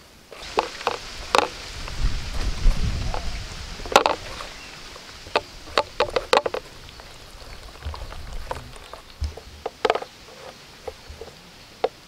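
Hands squelching and working through wet green masala paste in a steel plate, making irregular sticky clicks and taps against the metal. A brief low rumble comes about two seconds in.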